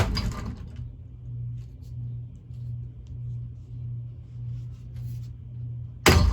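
Cheap ceiling fan running on high with a loud motor hum that swells and fades about twice a second, struck hard by a hockey stick twice: a sharp crack with a brief rattle at the start and another near the end.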